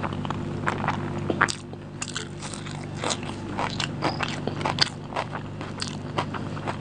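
Close-miked chewing of a mouthful of egg biryani: wet mouth clicks and lip smacks, irregular and many, with fingers squishing rice and curry on the plate. A steady low hum runs underneath.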